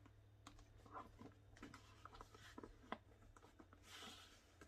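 Faint handling noise as a phone in a case is slipped into a pebbled leather Coach Emery crossbody bag: scattered small clicks and rustles of the leather, with a brief scratchy swish about four seconds in.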